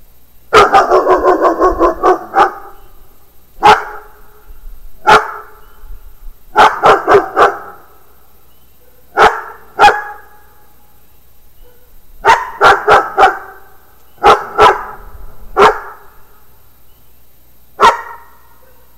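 A dog barking loudly and repeatedly. It opens with a rapid string of barks, then keeps barking singly or in quick bursts of two or three every second or two.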